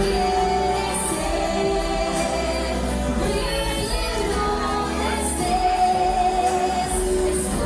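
Music with singing: held sung notes over a steady bass and light percussion.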